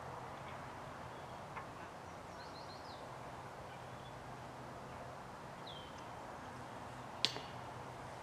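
Quiet outdoor ambience with small birds chirping a few times, and a single sharp click near the end.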